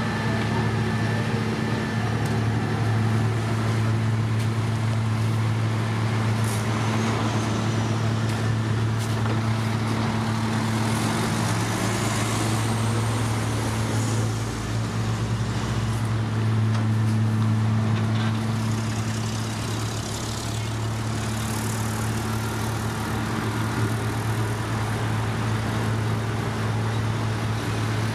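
Heavy diesel engines of road-paving machinery and dump trucks running steadily, a continuous low hum.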